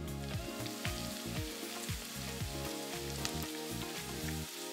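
Hot oil sizzling steadily as cornflour-coated chicken strips are dropped in to deep-fry, with small scattered pops.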